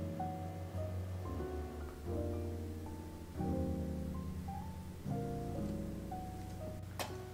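Background music: gentle piano chords changing about every second, with a light click near the end.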